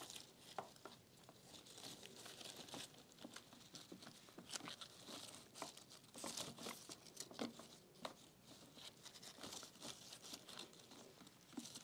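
Faint, irregular rustling and crinkling with scattered small clicks as fresh-cut roses are handled, their petals opened and guard petals pulled off.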